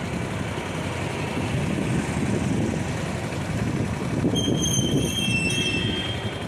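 Street traffic with motorcycles passing, a steady rumbling noise. From about four to six seconds in, a brief high-pitched squeal rings over it.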